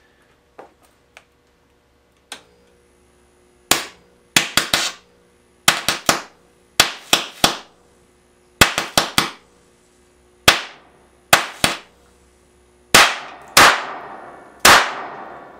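High-voltage capacitor bank (5.5 kV, 50 µF) discharging through a rotten tomato between electrodes, giving a rapid series of sharp cracking bangs. There are about twenty, in bunches of two to four, starting a few seconds in; the last three near the end trail off longer as the tomato bursts.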